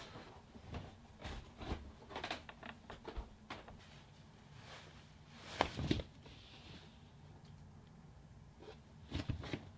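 Rustling of clothing and small knocks from things being handled, in scattered short bursts, with a louder thump a little before six seconds in and another cluster near the end.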